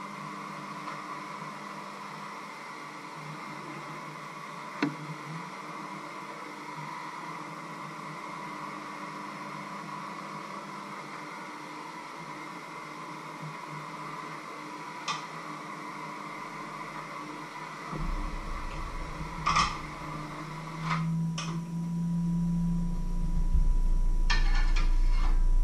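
Steady background hum and hiss in a small kitchen, broken by a few light clinks of a utensil against a pan or bowl. A low rumble comes in about three quarters of the way through and grows louder near the end.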